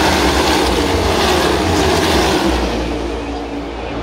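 A pack of NASCAR Gen 7 (Next Gen) stock cars with pushrod V8 engines racing past at full speed, many engines blending into one loud, dense drone. It fades somewhat near the end as the pack moves on down the track.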